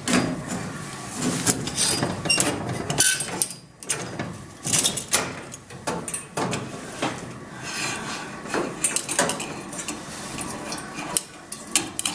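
Metal parts clinking and knocking as a power window regulator's steel track and brackets are handled and test-fitted against a door frame of perforated steel strapping. The irregular knocks and rattles come in quick clusters.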